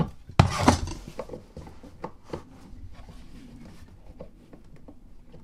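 Pliers coming off a plastic shower-drain fitting: two sharp knocks about half a second in, then faint scattered clicks and rubbing as the tool and hand are drawn away.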